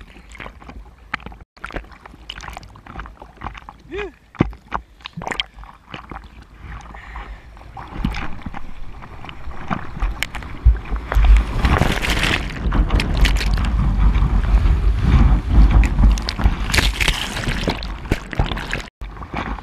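Sea water slapping and sloshing against a GoPro at the surface in choppy swell, with sharp splashes and gurgles. From about eight seconds in it builds into a loud, rumbling rush of breaking whitewater surging around the bodyboarder and camera, easing just before the end.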